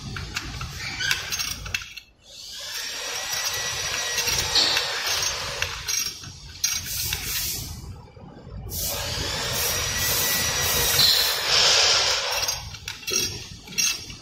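Ratchet wrench turning the rear axle nut of an electric scooter's hub motor, clicking in two long runs of about four seconds each, with metal clinks in between.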